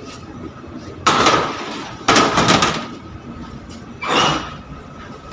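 Metal baking trays scraping as they are slid out of a bakery oven, three scrapes, each starting suddenly and lasting under a second, over a faint steady high tone. The trays hold freshly finished ensaymada and bread rolls.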